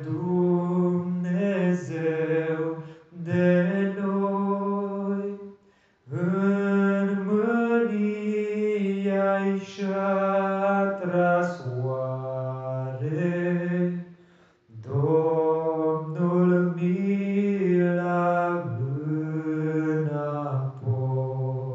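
Slow singing of a Romanian psalm hymn: long held notes in drawn-out phrases, with brief breaks about three, six and fourteen seconds in.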